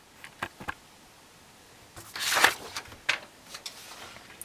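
A few light clicks and a short burst of rustling noise about two seconds in, typical of handling sounds.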